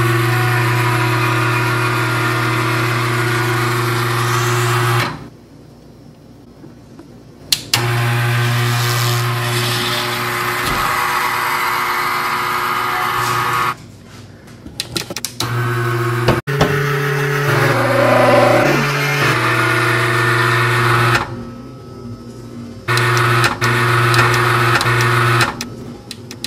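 Steady electrical machine hum of the carbon-freezing chamber, cutting out abruptly and starting again four times, with a stretch of stepping, wavering pitch about two-thirds through.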